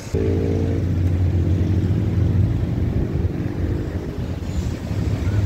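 Road traffic: a motor vehicle's engine running close by with a steady low hum, starting suddenly just after the start.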